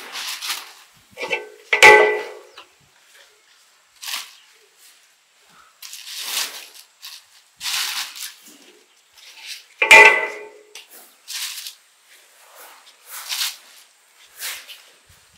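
Plastic bag crinkling and rustling in short bursts as boiled corn cobs are lifted from a metal bowl and put into it. Two louder clanks with a brief ring, about two seconds in and again near ten seconds, from the metal bowl being knocked.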